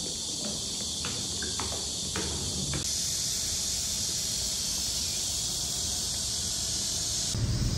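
Summer insects, most likely a cicada chorus, buzzing in a dense steady high drone that shifts a little higher about three seconds in. In the first three seconds, light shoe steps click on pavement about twice a second.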